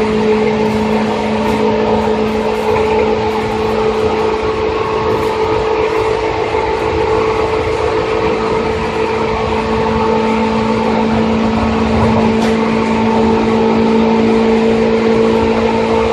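Seibu 2000 series electric train running at a steady speed: a steady hum of unchanging tones over a continuous rumble of wheels on the track, swelling slightly near the end.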